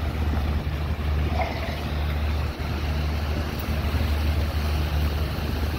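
Wind rumbling on the phone's microphone over the steady hiss of fountain jets splashing.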